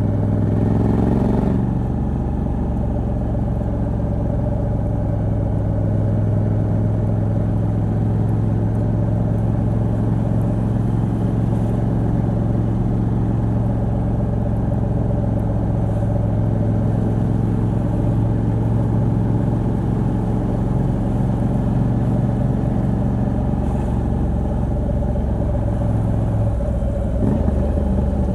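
Moto Guzzi V85TT's air-cooled transverse V-twin running under way, with a stock exhaust and decat pipe. Its pitch rises briefly at the start, holds a steady cruise, and shifts near the end.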